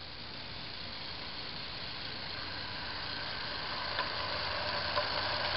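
Coal-fired Regner Willi live-steam garden locomotive running with its train, the sound growing steadily louder as it approaches, with two sharp clicks about four and five seconds in.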